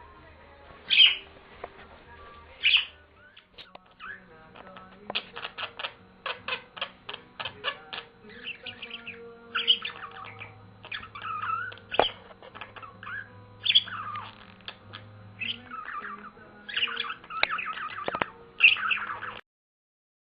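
Pet budgerigars chirping and squawking in short, irregular calls, with a quick run of clicky chatter in the middle. The sound stops abruptly about a second before the end.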